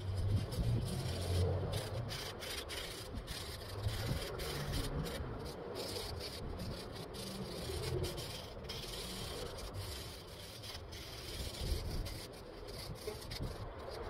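Sandpaper rubbed by hand along the wooden stock of a Riffe Euro speargun, a rough, continuous scratching that swells and fades with the strokes.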